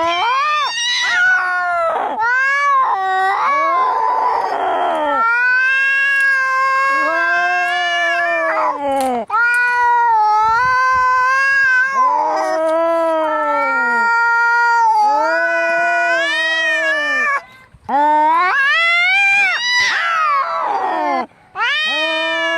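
Angry cats caterwauling in a fight: long, wavering yowls that bend up and down in pitch, one after another. A harsh, noisy screech comes about four seconds in.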